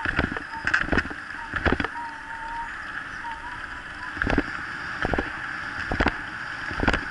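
Mountain bike rolling fast over a gravel forest track, with a steady rush of tyre and wind noise and irregular knocks and rattles as it hits bumps. A faint thin wavering whine runs briefly about two seconds in.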